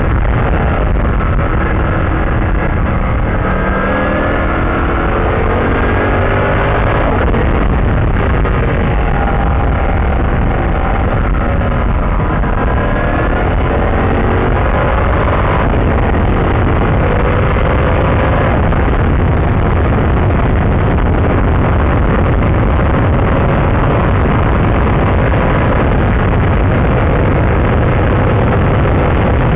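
Oreca FLM09 LMPC prototype's Chevrolet V8 at racing speed, its pitch climbing and dropping repeatedly through gearchanges and corners, under a loud rush of wind buffeting the open-cockpit onboard microphone.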